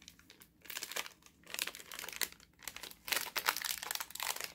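Crinkly plastic snack packet crackling and rustling in the hands as it is pulled and twisted to tear it open, a run of irregular crackles starting about a second in.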